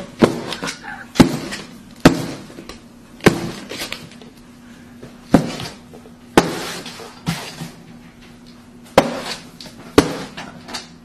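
Sharp knocks on a hard surface, about eight of them at uneven gaps of one to two seconds, as a capuchin monkey bangs on something, likely a gavel or its hand striking a table.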